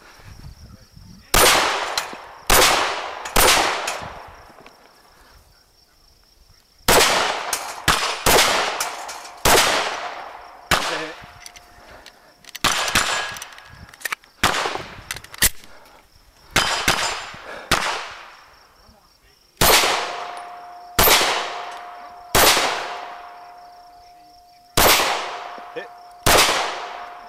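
Smith & Wesson M&P 9mm pistol firing rapid shots in groups of two to four with short pauses between, about twenty in all. A faint steady ringing tone hangs after several of the later shots.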